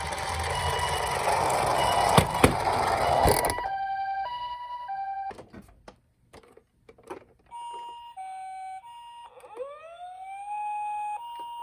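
Toy ambulance's electronic two-tone siren, a 'pee-po' alternating between a high and a lower note. For the first three and a half seconds it sounds over a loud rattling noise of the toy running down a plastic slope, which ends with a few knocks. Later a few clicks are heard, and a second siren wail rises in pitch and holds.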